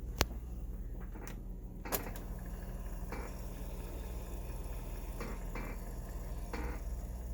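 A few sharp clicks and light knocks, with softer rustling, over a steady low electrical hum: handling noise at a repair bench.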